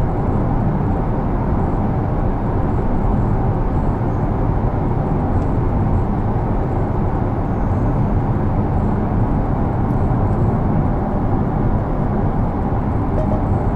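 Steady tyre and road noise heard inside the cabin of a Porsche Taycan Turbo S electric car cruising on a wet road, an even rush with no motor sound standing out.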